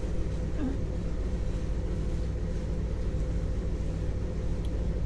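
Motor yacht's twin inboard engines running steadily under way, a constant low drone made of several even low tones.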